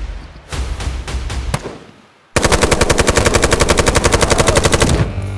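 A rapid burst of automatic gunfire, about a dozen shots a second for some two and a half seconds, starting just after a brief near-silent gap about two seconds in. It is the firing sound given to a blue toy dart blaster.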